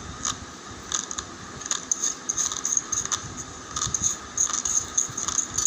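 Dry raw long-grain rice grains crackling in quick, irregular little clicks, more thickly in the second half.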